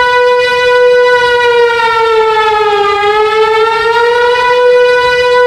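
Fire engine siren wailing loudly: one held tone that sinks slowly in pitch around the middle and rises back again.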